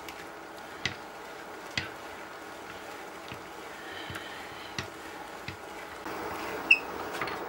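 Hand-cranked metal meat grinder milling roasted sunflower seeds: a faint steady grinding with a few sharp clicks.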